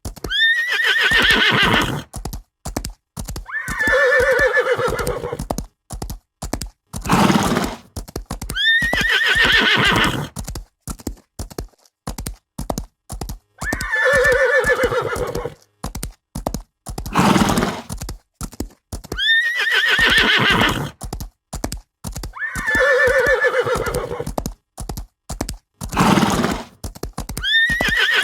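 Horses whinnying over hoofbeats, a recorded horse sound effect on a loop. Each cycle has a long high neigh followed by a second, lower whinny, with a steady patter of hooves between them, and the sequence repeats about every six seconds.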